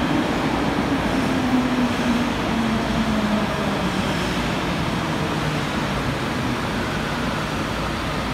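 Tokyo Metro 02 series subway train, a three-car 80-number set, braking into a platform with a low rumble. Its motor whine falls steadily in pitch as it slows.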